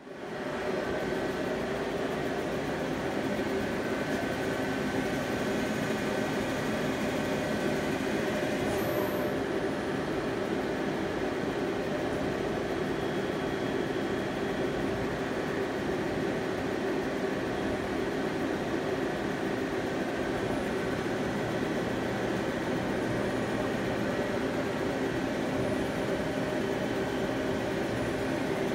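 2006 Okuma ES-L811 CNC lathe running under power, a steady mechanical hum with several held tones.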